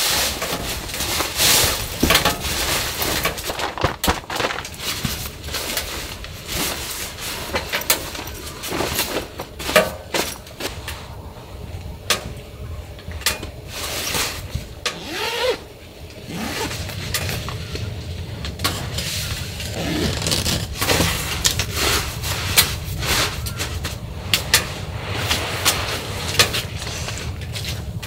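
Nylon shell of a down sleeping bag rustling and crackling as it is pulled out of its stuff sack and spread out by hand. A low steady hum comes in about halfway through.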